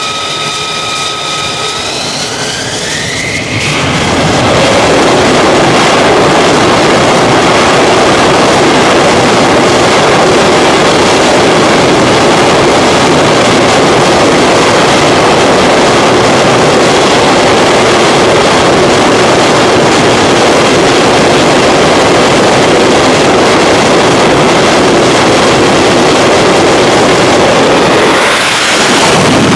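F-35C's F135 turbofan jet engine whining, the whine rising in pitch about two to three seconds in as it spools up to full power for a catapult launch. A loud, steady jet roar follows, and near the end the jet rushes past as it is launched.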